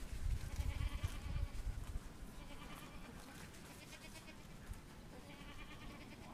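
Faint animal calls, short and twice, with a low rumble on the microphone over the first two seconds.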